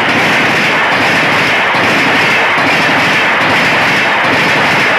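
Duronto Express passenger coaches running past close by at full speed: a loud, steady rush of wheel-on-rail and air noise.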